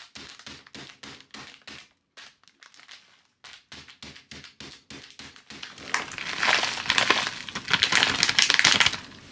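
Walnuts being crushed inside a plastic bag with a wooden pestle against a steel counter: a run of rapid knocks, about four a second, with a short pause. From about six seconds in, louder crinkling of the plastic bag as it is handled and the crushed nuts are poured out.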